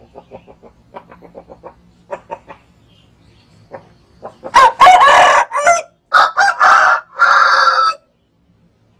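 Rooster crowing loudly about halfway through: one long call in three parts. Before it come some soft, short clucks.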